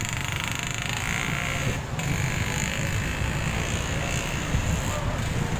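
Road traffic driving past close by: motorcycles, pickup trucks and a dump truck, a steady low rumble of engines and tyres.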